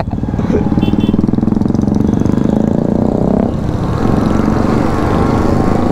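Yamaha RX135's two-stroke single-cylinder engine pulling under way, its note rising, dropping back about three and a half seconds in, then rising again, with other motorcycles in the group ride around it.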